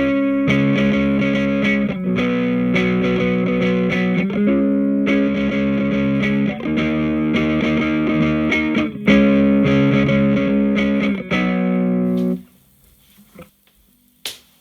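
Electric guitar played through a Hughes & Kettner Attax Metroverb 50-watt transistor amp, with chords held and changed every second or two. The playing stops about twelve seconds in, and one sharp click follows near the end.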